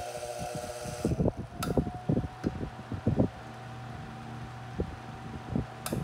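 1970s Hoover desk fan running on high: a steady motor hum, broken by irregular knocks and clicks. The owner says it has been oiled but doesn't sound like it.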